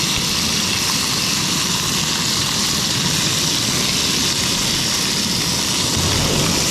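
Fish and fish roe frying in hot oil in a pan: a steady sizzle with a low rumble beneath it.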